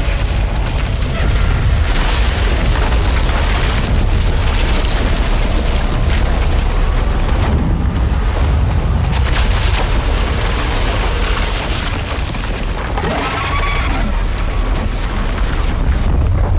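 Film sound effects of a massive ice wall collapsing under dragon fire: a rushing blast of fire, then a continuous deep rumble of crashing, tumbling ice and debris. Short louder surges come through, and there is a brief wavering high cry about thirteen seconds in.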